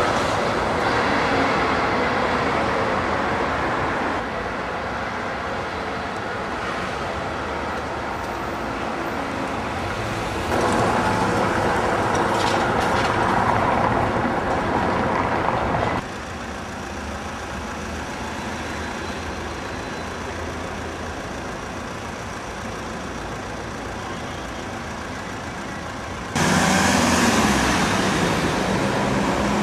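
City street traffic with articulated trolleybuses driving past, a steady mix of tyre and motor noise. The level and character of the sound change abruptly four times as the scene switches between different street spots.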